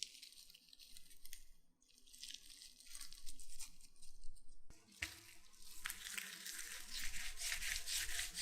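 Potato rings frying in hot oil: a crackling sizzle that is uneven at first, then after a break just under five seconds in comes back louder and denser.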